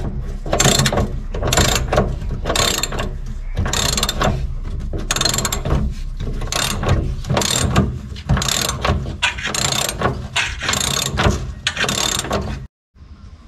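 Socket ratchet wrench clicking through repeated back-and-forth strokes, about two a second, turning a bolt. The sound cuts out briefly near the end.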